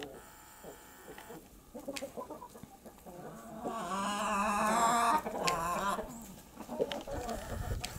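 A flock of Brahma chickens clucking while feeding. About halfway through, one long, loud, wavering call stands out.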